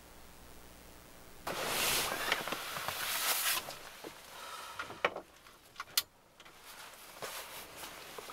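Sleeping-bag cover and padded jacket rustling as a person shifts in bed, loudest over about two seconds early on. Two sharp clicks about a second apart a little past halfway, then softer rustling.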